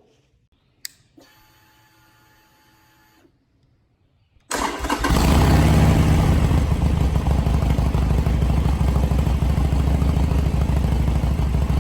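A click and a faint steady hum for about two seconds, then about four and a half seconds in the Harley-Davidson Sportster Forty-Eight's air-cooled 1200 cc V-twin starts and runs steadily with a deep, loud rumble, started after an oil change so the oil pressure light can go out and the oil come up to temperature.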